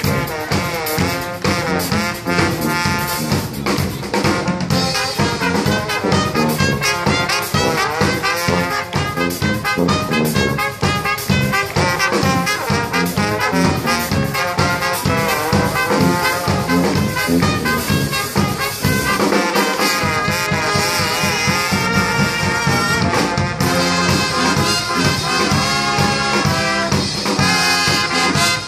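Brass band playing an upbeat tune: sousaphone bass line under trumpets and trombone, over a drum kit with bass drum. The low bass drops out for a moment about two-thirds of the way through.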